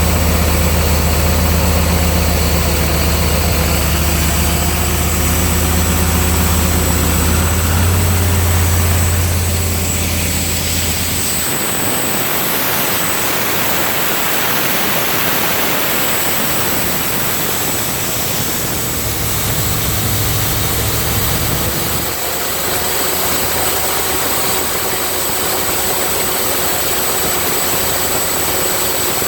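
302 V8 engine of an engine-driven air compressor running steadily, now charging properly on a new alternator and belt. A deep low hum falls away about eleven seconds in while a steady rushing noise carries on.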